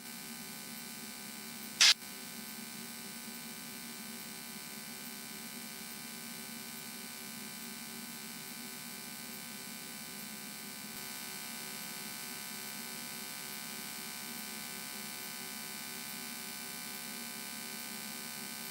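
Cessna 172N's four-cylinder engine and propeller droning steadily in cruise, an even hum with a brief burst of noise about two seconds in.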